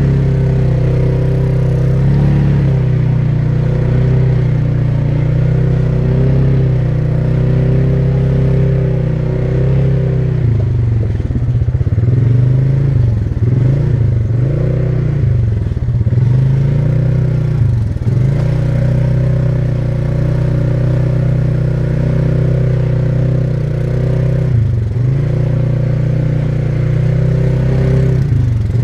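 ATV engine running at a steady pitch. Through the middle the pitch drops and climbs back several times in quick succession, and once more later, as the throttle is let off and opened again.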